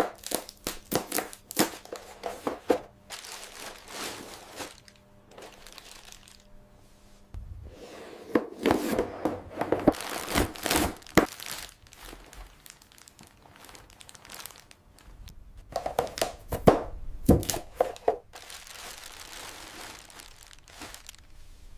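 Toy packaging being torn open and crumpled by hand: irregular crackles, rustles and sharp snaps in several bursts with quieter pauses between.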